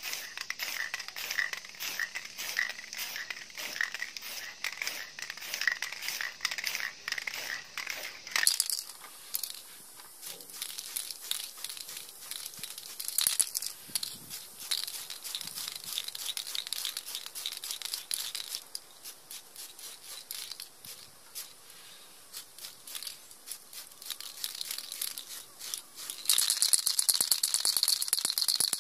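Aerosol spray-paint can spraying onto a plastic miniature truck body, in hissing passes. Near the end the can is shaken hard, its mixing ball rattling loudly.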